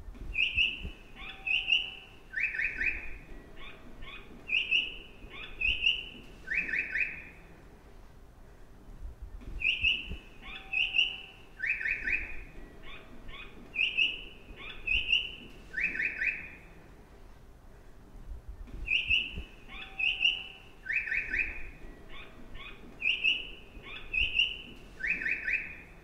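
Recorded bird chirps played as a train station's audible stair indicator for blind passengers: a short phrase of high chirps and a buzzy trill, given twice, with the whole pattern looping about every nine seconds.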